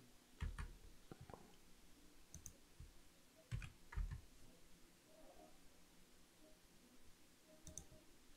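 A few faint, scattered clicks from a computer mouse and keyboard, one or two at a time with pauses of a second or more between them.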